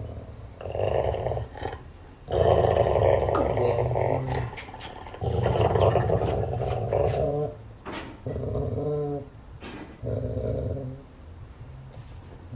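A dog growling in five drawn-out stretches of about one to two seconds each, with short pauses between them.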